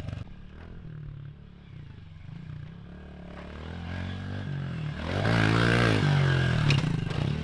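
Pit bike engine revving as the rider accelerates along the track. It rises in pitch and grows louder until it passes close by about five seconds in, then drops away a little.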